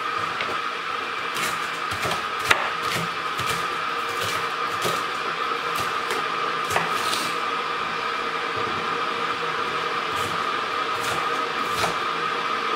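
Chef's knife chopping a yellow bell pepper on a wooden cutting board: irregular sharp taps of the blade on the board, about one or two a second, over a steady hum with a thin whine.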